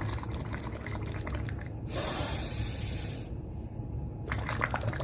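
Air blown through a drinking straw into a glass of water, bubbling with a dense crackle of small pops. About two seconds in the bubbling breaks for a short breathy hiss, then starts again near the end.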